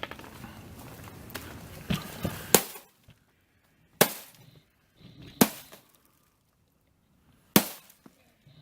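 Sledgehammer blows smashing the glass of a plasma TV. A crunch of breaking glass with several hits comes in the first two and a half seconds. Three single sharp strikes follow, about four, five and a half and seven and a half seconds in.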